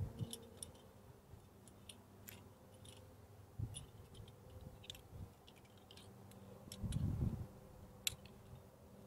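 Metal climbing carabiners and quickdraws clicking and jingling as a quickdraw is cleaned from the rock and clipped onto a harness gear loop: scattered sharp clicks, with a dull rumbling thump about seven seconds in that is the loudest sound.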